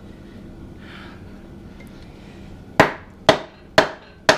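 Four sharp knocks about half a second apart, starting past the middle: a wooden hammer handle striking a connecting rod to drive a piston out of its cylinder in a Ford 460 big-block V8.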